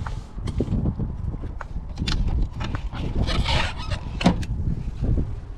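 Plastic door-handle bezel being pried off a car's interior door panel: scattered sharp clicks and plastic scraping, with a longer scrape past the halfway point and a sharp snap about four seconds in, over a low rumble.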